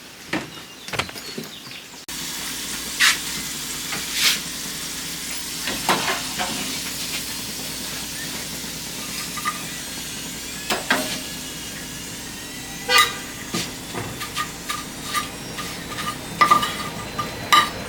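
Dishes and kitchen things clattering and knocking now and then over a steady hiss, as things are put away in a kitchen.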